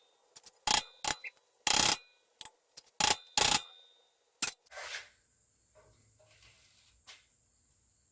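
A hammer striking a chisel on a Kubota RTV brake slave cylinder, about seven sharp, ringing metal blows in the first four and a half seconds. Then it goes quiet but for a faint steady hum.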